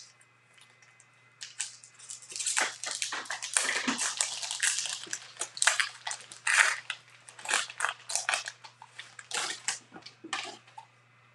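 The plastic wrapper of a Bowman baseball card pack being torn open and crumpled by hand, crackling irregularly, then the stack of cards slid out.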